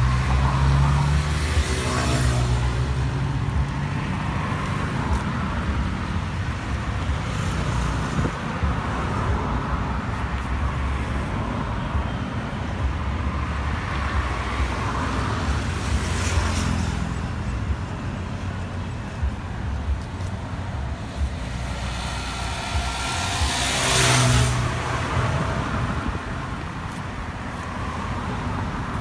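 Road traffic close by: a steady engine rumble with several vehicles passing, the loudest pass a few seconds before the end.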